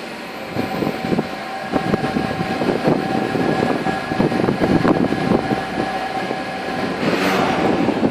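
VW Golf 7 1.4 TSI turbocharged four-cylinder petrol engine running just after a cold start, with an irregular rattling clatter over a steady whine and a brief hiss about seven seconds in. This is the odd cold-start noise that the dealer calls normal.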